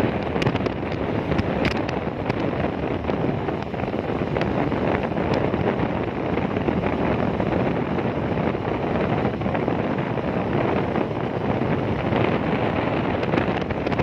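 Steady wind noise buffeting the microphone on a moving motorcycle, mixed with the rush of the ride, with a few faint ticks in the first couple of seconds.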